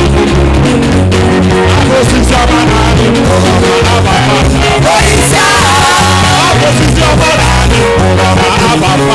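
Upbeat band music with a strong repeating bass line and beat; a wavering melody line comes in about halfway.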